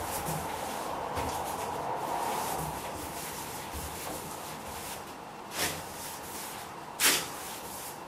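Paintbrush rubbing over wooden woodwork in soft strokes, with two sharper swishes near the end.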